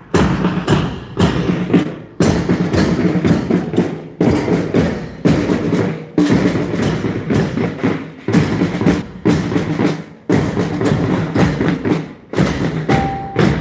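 A band's marching drums, side drums and bass drums, beaten together with sticks in a fast, steady rhythm. The playing breaks off briefly every couple of seconds.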